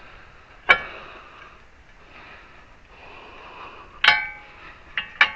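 Sharp metallic clanks of steel tools against metal: one about a second in, a louder one with a brief ring about four seconds in, and two quick ones near the end, over a faint steady hiss.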